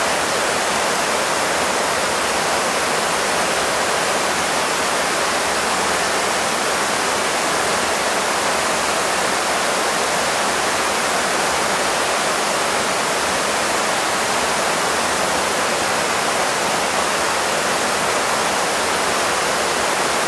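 Fast, shallow river flowing over boulders: a steady, unbroken rush of water.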